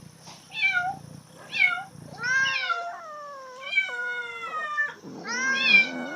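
Cat in heat meowing over and over: three short meows that rise and fall, then two long drawn-out calls with a wavering pitch, then a loud meow near the end.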